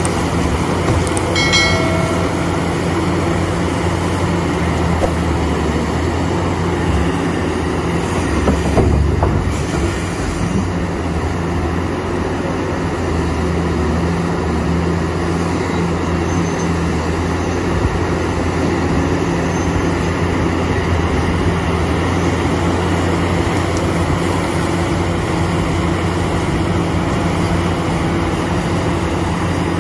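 Heavy diesel earthmoving machinery running steadily with a low rumble, a brief high squeal about a second and a half in, and a louder clatter around nine seconds in.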